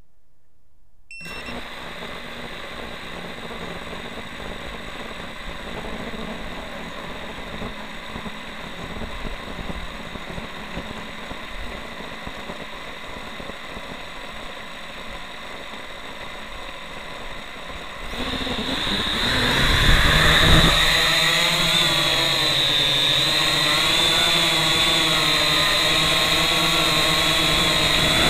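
FPV quadcopter's brushless motors heard through the action camera mounted on the drone. They spin steadily at idle while it sits on the ground, then throttle up about 18 seconds in, much louder, with a wavering whine as it takes off and flies.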